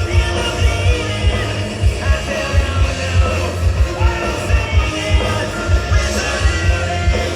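Live rock band playing a grunge-style song with a lead singer over loud drums, bass and distorted guitars.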